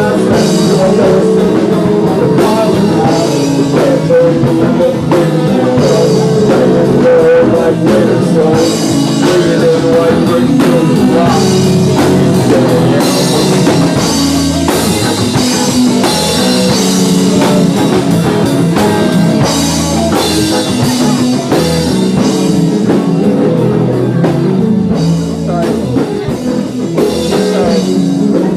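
Rock band playing live, loud and continuous: guitar and drum kit.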